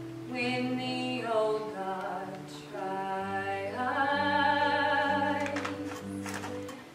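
Slow vocal music: a voice sings long held notes with vibrato over sustained low notes. The loudest, most wavering phrase comes about four to five seconds in.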